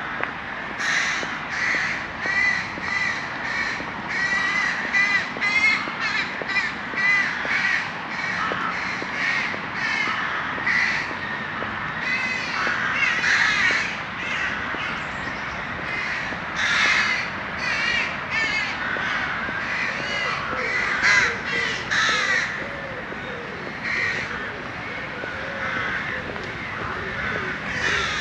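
A flock of crows cawing, many calls overlapping without a break.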